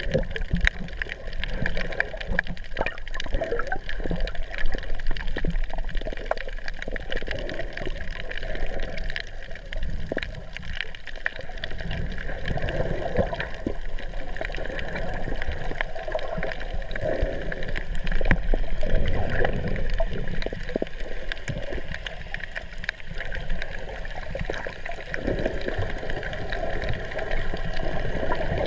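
Water sloshing and gurgling heard through a camera held underwater, muffled, with a low rumble and many scattered small clicks and crackles.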